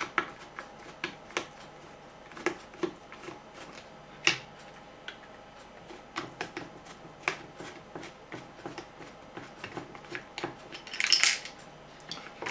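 Irregular small clicks and light knocks of plastic radio parts and small tools being handled during reassembly. A louder scrape lasts about half a second, near the end.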